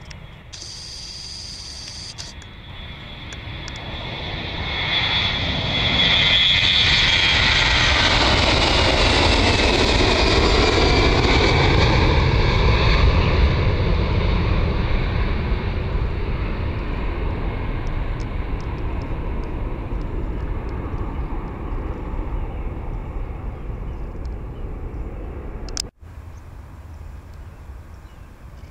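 Airbus A321-211 twin jet engines at takeoff thrust as the airliner rolls past and lifts off. The sound builds over a few seconds to a loud rumble with a whine that falls in pitch as it passes, then slowly fades as it climbs away. After a sudden cut near the end, a quieter, steady jet rumble follows.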